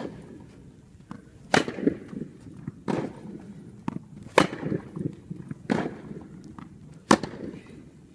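Tennis ball struck by rackets: six sharp hits about every one and a half seconds, with fainter ball bounces between, each hit ringing on in the hall of an indoor court.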